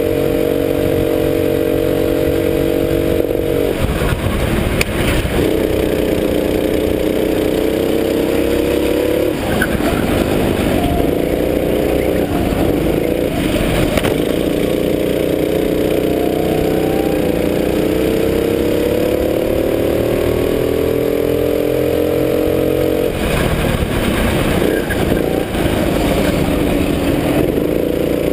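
Go-kart engine running hard, its pitch climbing slowly as the kart accelerates and dropping away about four times as it slows for corners, with knocks and rattles through the corners.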